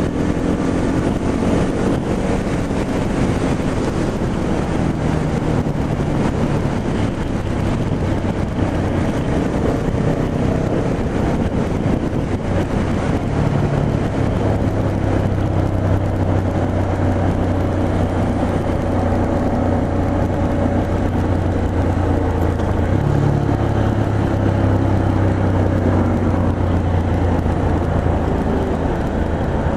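Motorcycle engine running at road speed under a steady rush of wind and road noise; the engine note rises a little near the start, then holds steady.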